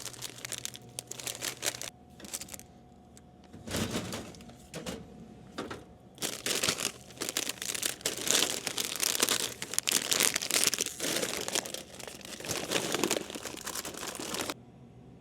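Plastic snack packaging crinkling and rustling as it is handled, in irregular bursts that grow busier partway through and stop abruptly near the end.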